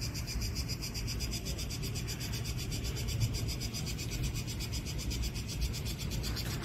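Cicadas buzzing in rapid, even pulses over a low steady rumble.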